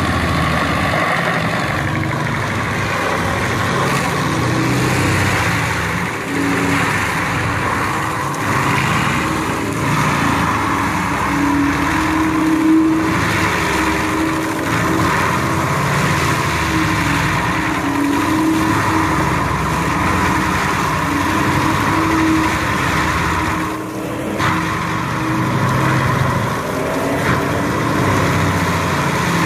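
Tracked forestry mulcher working: its Cat C18 six-cylinder diesel engine running under steady load while the front mulching rotor grinds through soil, roots and brush. Steady, dense machine noise with a hum that swells and fades.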